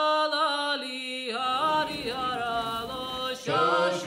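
Chant-like sung vocal music: one voice holding and bending long notes, with lower voices joining about a second and a half in.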